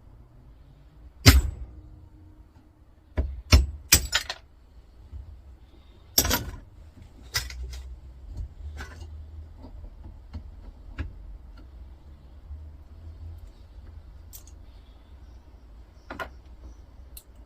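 Irregular sharp metal knocks and clinks, about a dozen, the loudest in the first half: a small transformer's welded metal case being struck to break the weld and free its lid.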